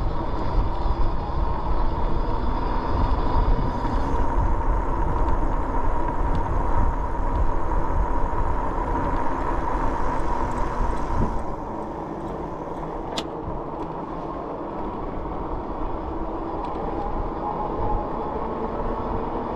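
Riding noise from a Rad Rover e-bike: a steady whine from its 750 W rear hub motor under pedal assist, over the rumble of wind on the microphone and the fat tyres on pavement. About halfway through, the whine and rumble drop away and leave a quieter rolling sound, with one sharp click a little later.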